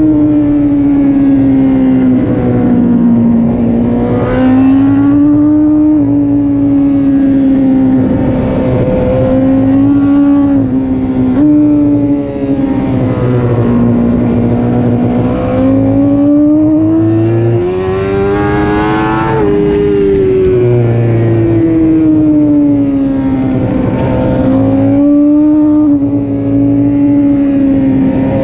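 BMW S1000RR inline-four engine heard from on board at racing speed, revving up through the gears with quick breaks at each shift, then falling in pitch as it slows for corners, over and over.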